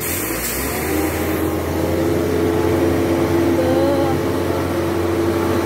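Concrete mixer truck running steadily, its engine and turning drum giving a constant low hum while concrete is discharged down the chute.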